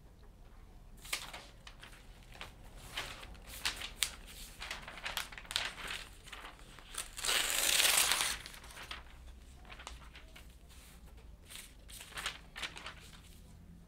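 Lined notebook paper being handled and turned: scattered crinkling and crackling, with one longer, louder rustle about seven seconds in.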